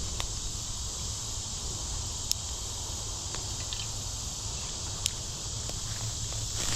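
A steady, high chorus of insects buzzing, with two sharp clicks about two and five seconds in.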